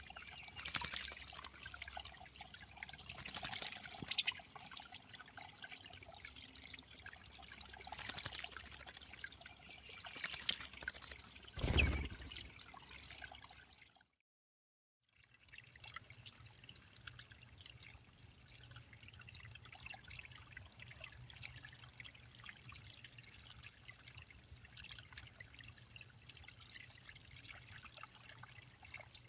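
Water trickling and dribbling steadily at a small backyard bird pond, with one short louder burst about twelve seconds in. The sound drops out completely for about a second just before halfway, then the trickling resumes, quieter and steadier.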